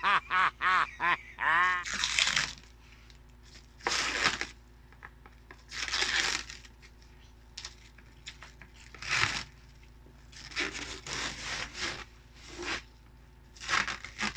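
Plastic packaging crinkling and tearing in short bursts as an air fryer is unwrapped, after a short bit of voice at the start.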